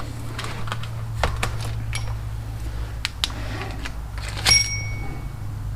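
Light metallic clicks and clinks of brake parts and tools being handled, with one ringing metal clink about four and a half seconds in, over a steady low hum.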